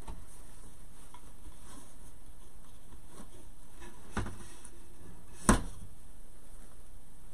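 Soft handling of ribbon on a wooden bow maker over a steady background hiss, with a faint knock about four seconds in and a sharp knock at about five and a half seconds, as the bow comes off the dowel peg.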